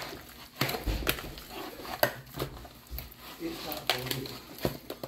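Hands kneading and squishing seasoned raw steak in a plastic food container, with irregular clicks and knocks against the plastic and a couple of duller thumps.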